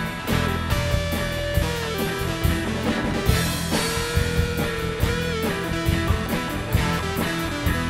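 Band playing an instrumental rock passage with no singing: guitar over a steady drum beat, and a lead line of held notes that bend in pitch.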